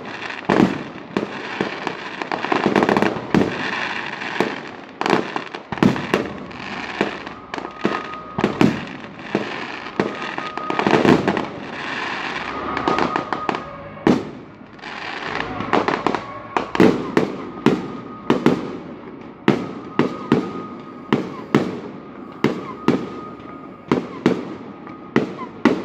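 Fireworks display: aerial shells bursting in quick succession, a sharp bang every second or so over a steady crackle of glittering stars.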